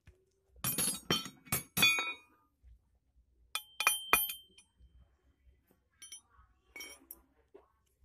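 Small metal parts of a diesel fuel injection pump clinking and clattering as they are handled: a quick run of clatters early, then two ringing metallic clinks a little before halfway, and a few lighter taps near the end.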